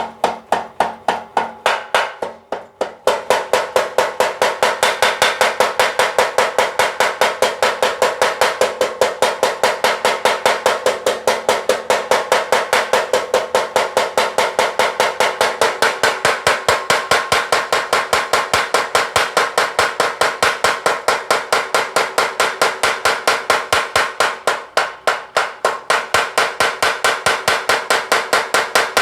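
Mechanical blacksmith's power hammer pounding in a fast, steady rhythm of several blows a second, each with a metallic ring. The blows become louder and more rapid about three seconds in.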